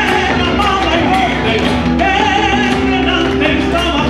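Live Argentine folk music, a gato, played on two acoustic guitars and a drum struck with sticks, with a man singing.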